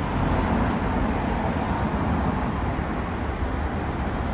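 Tipper truck's diesel engine idling close by: a steady low rumble.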